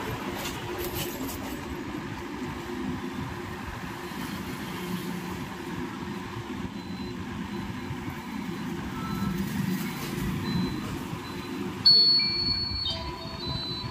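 Cellecor D9 feature phone's power-on tone: a sudden loud high beep near the end, held about a second, then a few short electronic notes at different pitches as the phone boots. Beneath it, a steady low background rumble.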